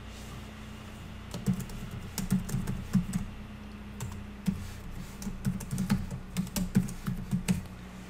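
Typing on a computer keyboard: a quick, uneven run of key presses, about twenty keystrokes, starting about a second and a half in.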